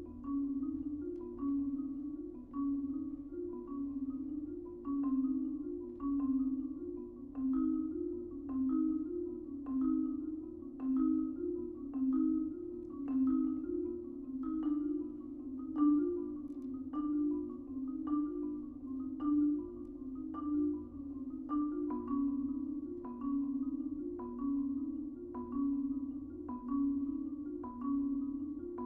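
Marimbas played with soft yarn mallets: a quiet, repeating figure of low notes, with higher notes struck about once a second.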